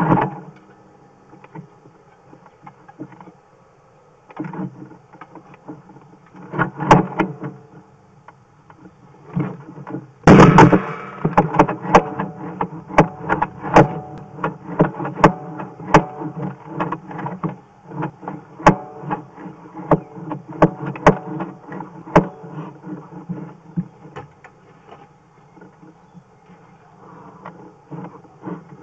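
Sewer inspection camera head being handled at the pipe opening, picking up irregular knocks and clatter over a low steady hum. A loud bump comes about ten seconds in, then the knocks come thick for about ten seconds before thinning out.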